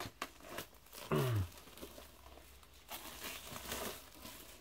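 Plastic shrink-wrap crinkling and tearing as a sealed vinyl LP is opened by hand, with a short low hum from a man's voice, falling in pitch, about a second in.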